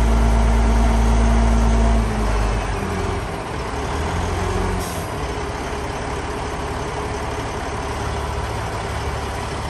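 Heavy diesel dump truck running while its hydraulic hoist tips the bed up. The engine runs loud and steady, then drops back about two seconds in. A brief hiss comes near five seconds in.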